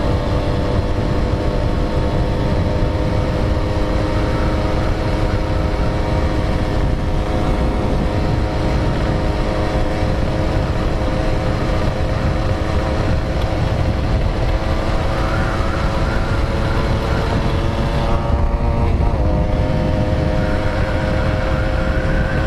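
Two-stroke underbone motorcycle engine running steadily at cruising speed, with wind rush on the microphone. The engine pitch dips briefly and comes back up near the end.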